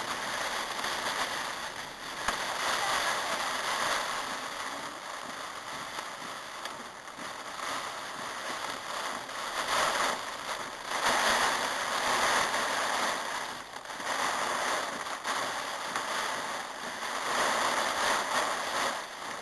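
Heavy storm rain and wind: a dense steady hiss that swells and eases in gusts three times.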